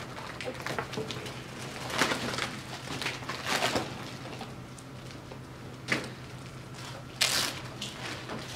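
Classroom room noise: scattered rustling, shuffling and clicks over a steady low hum, with a sharp click about six seconds in and a brief loud noise a second later.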